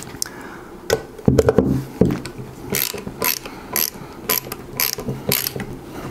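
Ratcheting screwdriver driving a small screw into a rifle's trigger assembly: a few handling knocks, then a run of ratchet clicks about twice a second from about halfway through as the screw is tightened.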